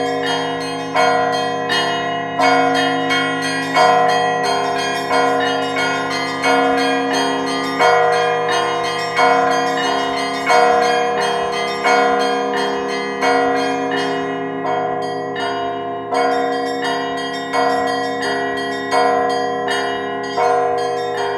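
Russian church bells ringing together: a loud stroke about every second and a half, with smaller bells struck in quick patterns between, all tones ringing on and overlapping.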